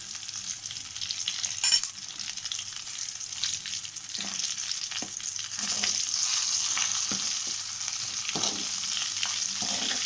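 Chicken legs shallow-frying in hot oil in a pan: a steady sizzle with scattered small crackles and pops. A single sharp click about two seconds in is the loudest moment.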